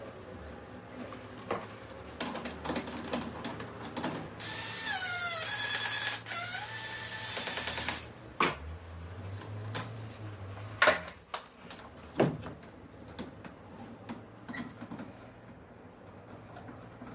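A power tool, such as a drill, runs for about four seconds in the middle; its whine dips in pitch and recovers as it takes load. Sharp knocks and clicks of tool and hand work come before and after it, the loudest about eleven and twelve seconds in.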